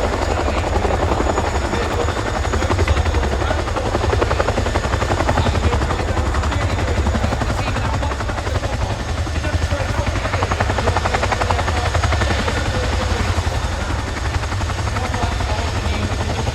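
Boeing Chinook HC.6 tandem-rotor helicopter running close by, a loud, steady, rapid beat of the rotor blades over a deep rumble.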